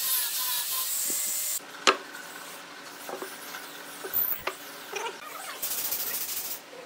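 Angle grinder with a sanding disc whining as it sands a wooden block, cutting off abruptly about a second and a half in. Then a sharp knock and several lighter knocks of wood on the workbench, and about a second of rasping noise near the end.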